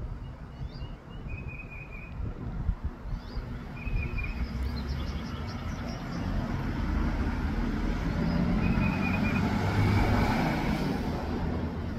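A road vehicle passing by: a low rumble that swells over several seconds, is loudest about ten seconds in, then eases off. Short bird chirps and trills come through now and then.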